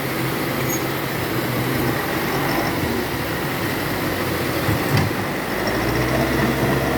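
Dump truck's diesel engine running under load, growing deeper and stronger about five and a half seconds in. A single sharp knock just before that.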